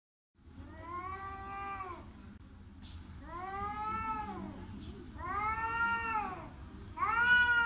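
Domestic cat yowling in four long, drawn-out calls, each rising and then falling in pitch, the last the loudest.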